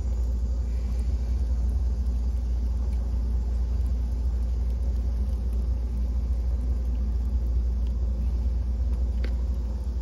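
Steady low rumble of a HeatMasterss G4000 gasifying wood furnace running after being relit, its fire burning in the firebox.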